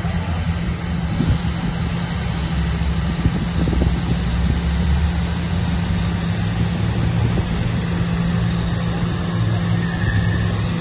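An engine running steadily with a constant low hum, together with the hiss of a fire hose jet spraying water.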